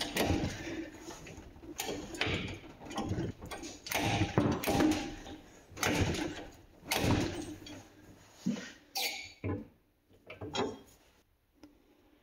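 Tool work on the rivets of a motorcycle brake disc: a series of short, irregular bursts of workshop noise that stop about eleven seconds in.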